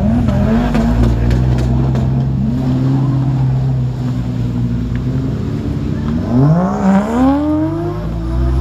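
Modified Toyota Chaser's engine revving as the car pulls away, its pitch climbing in surges with a steady stretch between them. The loudest, longest rise comes about six to seven seconds in, with a few sharp clicks near the start.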